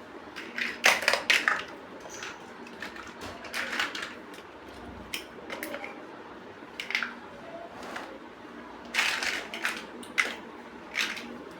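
Plastic building bricks being handled and pressed together: clusters of sharp clicks and rattles, loudest about a second in and again around nine seconds in.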